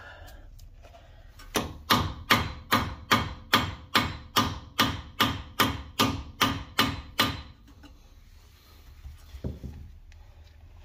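Steel hammer striking the end of a Honda Civic's CV axle through the wheel hub, driving the splined shaft out of the hub. It lands about fifteen quick, even blows, roughly two and a half a second, then one more knock near the end.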